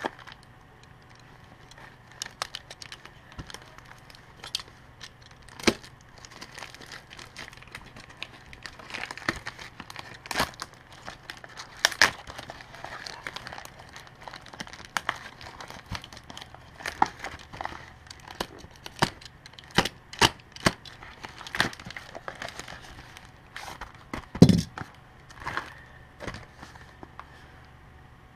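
Plastic mailer bag being slit with a utility knife and torn open, crinkling with many scattered sharp crackles and clicks. A single louder thump comes near the end.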